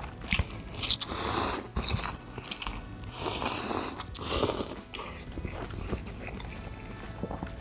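Close-miked eating: biting and chewing, with a few louder, noisier stretches of about a second each.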